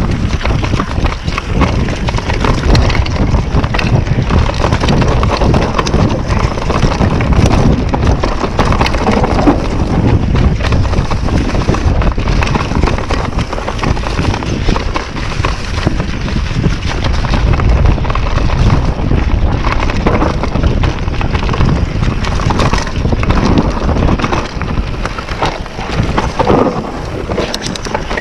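Wind buffeting the action camera's microphone as a YT Capra mountain bike descends a dirt and leaf-strewn forest trail, with steady tyre roar and a constant rattle and clatter of the bike over roots and bumps.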